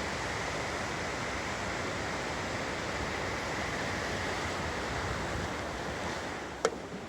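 Steady rush of flowing water where a waterfall-fed tributary meets a creek. A single sharp click sounds near the end.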